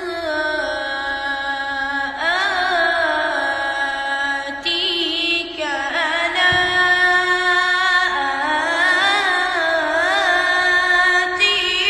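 A child's voice chanting Quran recitation in the melodic mujawwad style, stretching a single word over long ornamented, wavering phrases.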